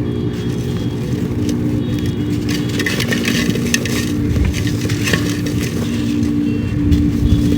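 Pure charcoal crumbled by hand, with scattered crisp crackles and crunches, over a steady low hum.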